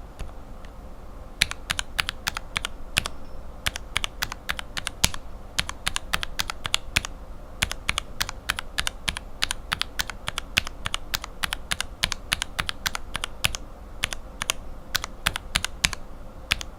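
Lubed linear mechanical keyboard switches with Cherry retooled bottom housings and Revo White stems, pressed one after another, each press giving a sharp bottom-out click and a top-out click on release. The clicks come in irregular runs, with a short pause about a second in and another near fourteen seconds.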